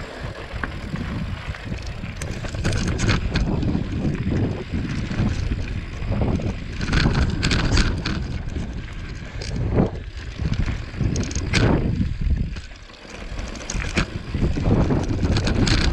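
Mountain bike riding over rough dirt and rock singletrack: wind buffeting the microphone, tyres rumbling on the dirt, and the bike rattling with sharp knocks as it hits rocks, the loudest several times through the ride.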